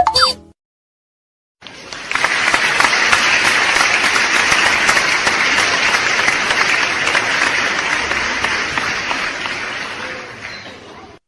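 Crowd applause sound effect: many hands clapping together, starting about a second and a half in, holding steady, then fading out near the end.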